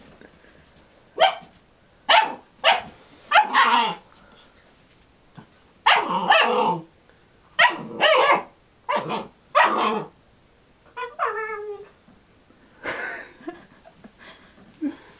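Ten-week-old Alaskan Malamute puppy play-barking: about a dozen short, sharp barks in irregular bursts, with a wavering, whining call about eleven seconds in.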